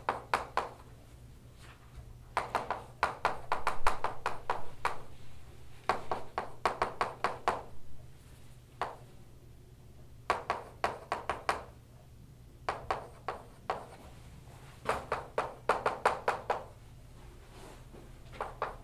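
Chalk writing on a blackboard: bursts of quick sharp taps and clicks as each symbol is written, separated by short pauses.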